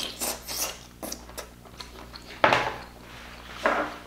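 Eating sounds of king crab meat being bitten and chewed: wet mouth smacks and clicks, with a louder burst about two and a half seconds in and another a little before the end.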